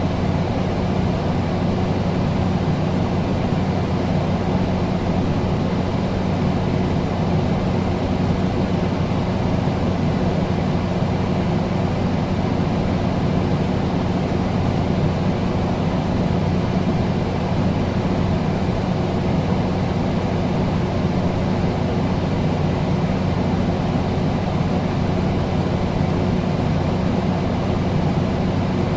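Air conditioner running steadily: an even whir over a constant low hum, with no change in level.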